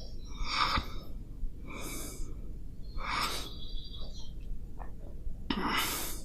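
A sleeping cat snoring: four noisy, breathy snores spaced a second or more apart.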